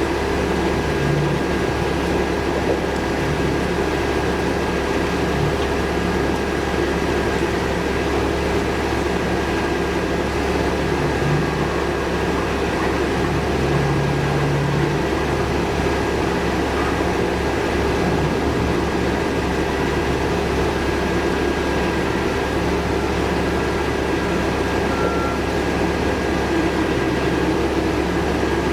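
Steady rumble of city street traffic with a constant mechanical hum, even in level throughout.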